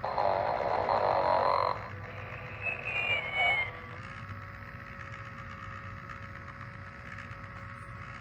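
Sleep and Snore Ernie toy snoring through its small speaker: a raspy snore for nearly two seconds, then a short warbling whistle about three seconds in, followed by a quieter stretch with a faint steady hum.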